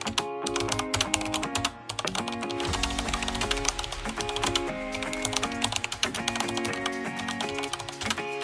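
Typing sound effect, a rapid run of key clicks, over background music with a melody.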